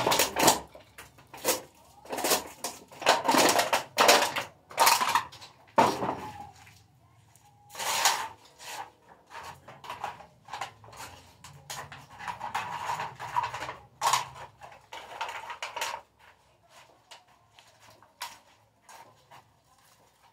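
Clattering and rustling of recyclable junk being handled and moved about: a quick run of knocks and clicks mixed with crinkling, which stops about two thirds of the way in.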